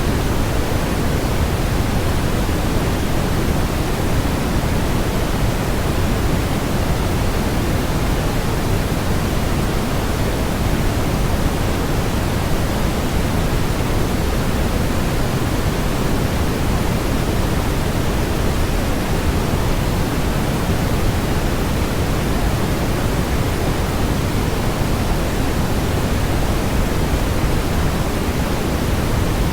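Steady synthetic noise, an even, unchanging hiss with most of its weight in the low end and less in the highs.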